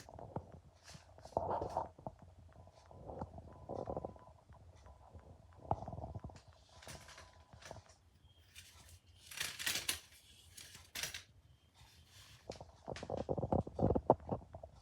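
Irregular handling noises of an aluminium phone tripod being worked by hand: scattered clicks and knocks with rubbing and scraping in between.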